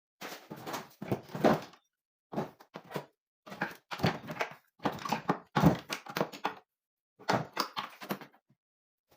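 Irregular knocks, thuds and scraping of parts being handled, in clusters of a second or so, stopping shortly before the end.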